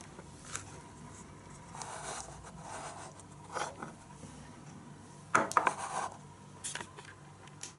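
Taped-together Bakelite projector parts being handled on a workbench: soft scrapes and rubbing with a few light clicks and knocks, the loudest cluster about five and a half seconds in.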